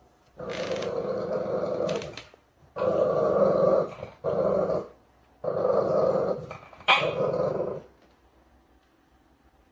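A dog growling in a run of about five drawn-out growls with short breaks between them. The growls stop about two seconds before the end.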